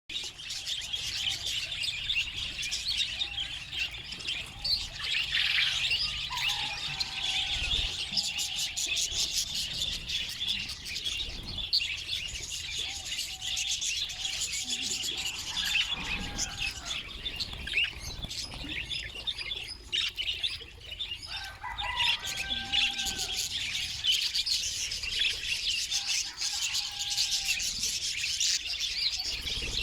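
A group of budgerigars chattering and chirping nonstop, many rapid calls overlapping, with a few lower whistled glides now and then.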